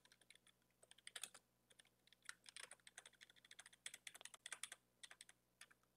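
Faint typing on a computer keyboard: irregular runs of quick key clicks, with short gaps between bursts.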